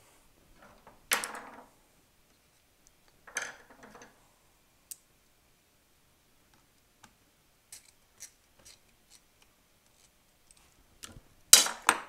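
Yellow plastic motor cap of a DeWalt DWP611 router handled and pressed into place: short plastic handling noises about a second in and around three and a half seconds, scattered light clicks between, and the loudest handling noise near the end.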